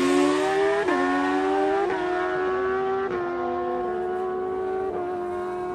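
Naturally aspirated inline-four engine of a Suzuki GSX-R1000 Real Street drag bike at full throttle on a drag-strip pass. It shifts up four times, each shift a sudden drop in pitch before it rises again, with the shifts coming further apart, and it fades as the bike pulls away.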